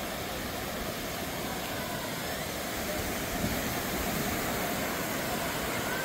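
Steady rush of small ocean waves breaking and washing up the shore, with faint voices of beachgoers now and then.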